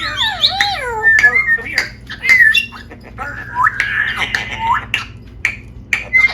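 A pet parrot squawking and chattering: a busy run of short squawks and whistles that glide up and down in pitch, with short clicks between the calls.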